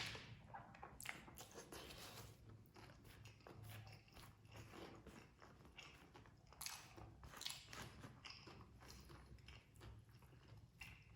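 A person eating nasi Padang close to the microphone, chewing with many short, irregular mouth clicks and smacks.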